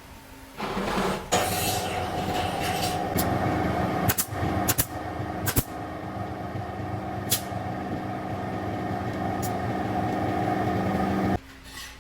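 An electric power tool's motor running steadily, with several sharp clicks or knocks. It starts about half a second in and cuts off abruptly near the end.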